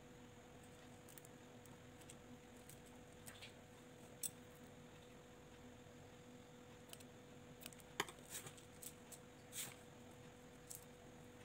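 Faint, scattered small clicks from plastic beads and small scissors being handled while the elastic thread of a bead bracelet is tied off and trimmed. The sharpest click comes about eight seconds in. A steady faint hum runs underneath.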